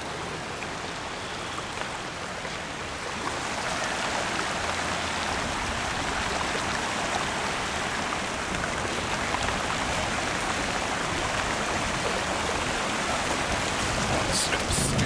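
Floodwater rushing in a steady wash of noise from a broken beaver dam, growing a little louder about three seconds in.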